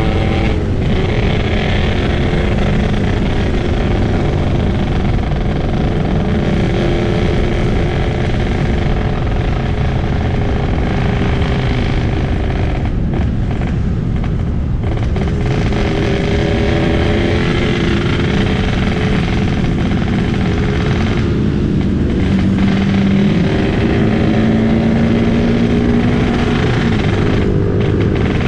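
Yamaha RX-King two-stroke single-cylinder motorcycle engine, set up for the raspy 'ngorok' exhaust note, running under way at speed. The engine note holds steady, with brief dips near the start, around the middle, about three quarters through and near the end, each followed by the engine pulling again at a new pitch.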